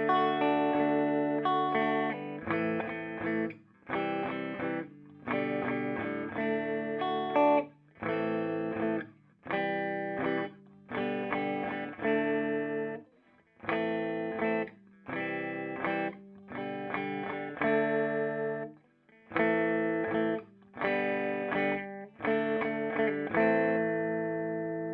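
Electric guitar chords played through a Peavey Bandit 112 combo amp's clean channel: a steady run of chords, each held about a second and then cut short, with the last one left ringing out near the end.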